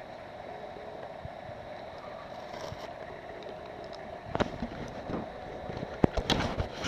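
Handling noise of a cordless phone handset and the camera over a steady low background hum: from about four seconds in come clicks, rubbing and knocks, the loudest near the end.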